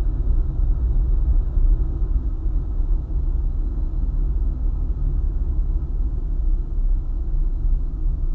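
Car travelling at road speed on a highway: a steady low rumble of tyres and engine, with no sudden changes.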